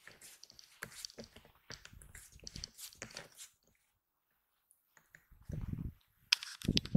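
Wind buffeting an outdoor microphone, with faint rustling handling noise as the rangefinder is moved. It starts as irregular light clicks and rustles, then turns into louder low gusts from about five seconds in.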